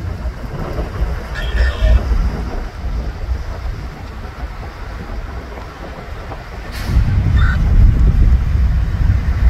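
Low rumble of a parked diesel locomotive idling, heard through an open car window over wind and road noise as the car drives slowly past. It grows louder about seven seconds in as the locomotive is passed close by.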